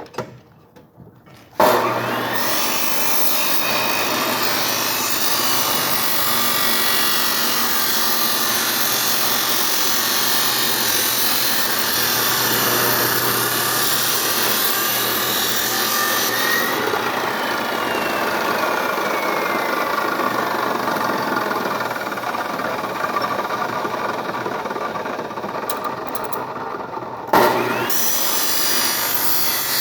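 Makita chop saw running and cutting through material: a loud, steady grinding saw noise that starts about a second and a half in. The high hiss thins out about halfway through, and near the end the sound dips briefly and then surges back.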